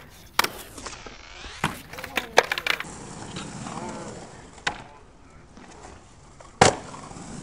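Skateboard tricks on concrete: sharp clacks of the board's tail and trucks hitting the coping and landing, with wheels rolling on concrete between them. A cluster of clacks comes in the first half, and the loudest single clack comes near the end as the board slaps onto the bank's lip.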